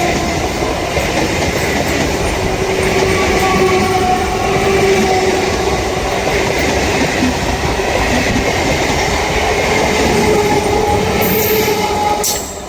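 Train passing close at speed, a loud steady rumble of wheels on rails with faint whining tones over it. It drops away sharply near the end as the train clears.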